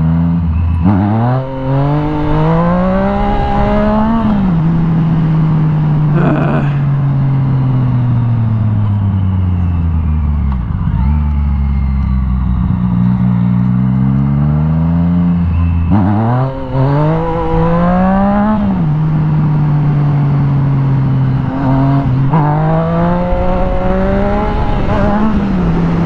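Yamaha FZ-09's 847 cc three-cylinder engine under a rider's throttle, pulling hard with its pitch climbing about four times and easing back to a steady run in between.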